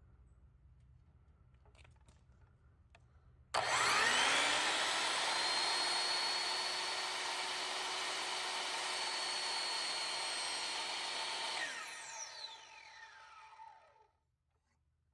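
Electric power-tool motor switched on, spinning up quickly to a steady high whine, running evenly for about eight seconds, then switched off and winding down with a falling whine.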